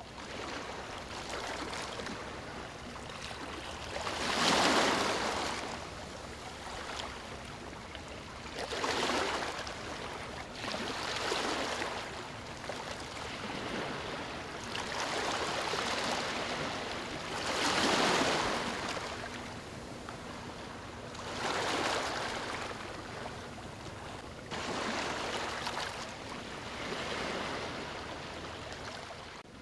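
Ocean waves breaking on a beach: rushing surf that swells and falls away every few seconds, with two larger breakers standing out among the smaller ones.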